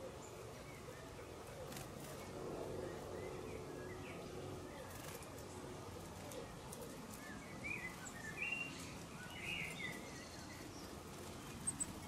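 Quiet garden ambience with a low steady background hum, and a cluster of short, high bird chirps and calls between about seven and ten seconds in. A few faint clicks are scattered through.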